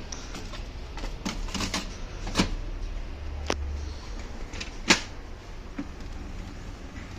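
Brother DCP-L2541DW laser printer starting up with its drive gears freshly replaced: a low motor hum with a short stronger run in the middle and a handful of irregular sharp mechanical clicks, without the repeated knocking of worn gears.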